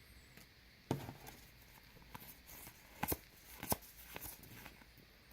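Basketball trading cards being handled and flicked through by hand: a few faint, sharp snaps and flicks, one about a second in and several more around three to four seconds in, with light rustling between.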